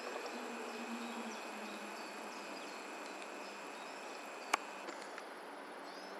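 Faint woodland ambience: a steady high-pitched hum under a soft hiss, with scattered faint, distant bird chirps and one sharp click about four and a half seconds in.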